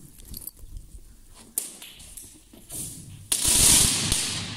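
A firecracker exploding inside a concrete tunnel about three seconds in: a sudden loud bang whose echo dies away over about a second.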